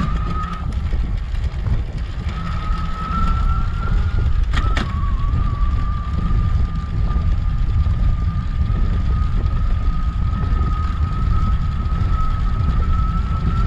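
Dapu mid-drive electric bike motor whining steadily under full pedal assist, the whine dropping out briefly about a second in. Heavy wind rumble on the microphone underneath, and a sharp click about four and a half seconds in.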